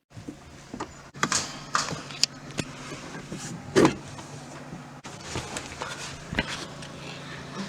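Plastic door trim panel being pried at with a spatula and screwdrivers: a run of sharp clicks, knocks and scrapes over a steady low hum.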